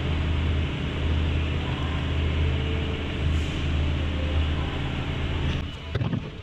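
A machine running steadily with a deep hum and hiss, dying away about five and a half seconds in.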